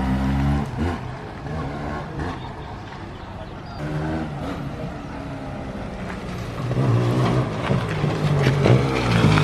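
Two-stroke motorcycle engine being revved in short blips, dropping back to a lower idle between them, then held at higher revs for the last couple of seconds.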